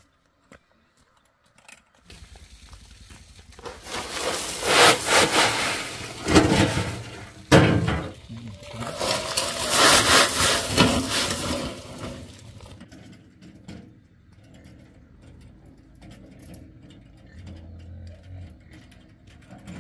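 Gravel pouring and rattling out of a tipped wheelbarrow onto a gravel pile, in two long rushes with a sharp knock between them.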